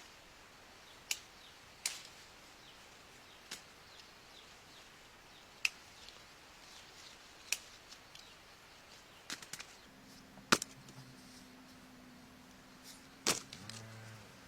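A series of about ten sharp clicks or snaps at irregular intervals, with a faint low hum coming in about two-thirds of the way through.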